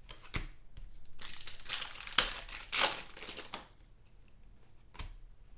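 Foil trading-card pack wrappers and cards being handled, crinkling in several rustling bursts over the first three and a half seconds, then a single soft click near the end.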